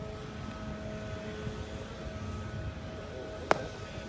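A pitched baseball popping into the catcher's mitt, one sharp crack about three and a half seconds in. Under it runs a steady low drone.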